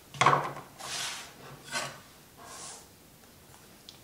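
A short breathy sound, then three brief rubbing scrapes under a second apart as a clear acrylic quilting ruler and tailor's chalk are handled and slid over cork fabric on the work table.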